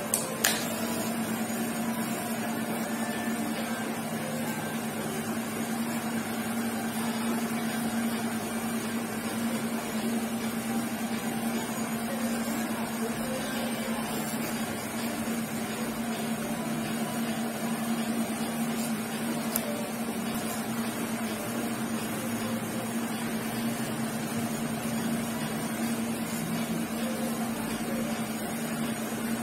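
Cordless hair clipper running with a steady hum while its blade corner is worked through short hair to blend a fade. Two sharp clicks right at the start.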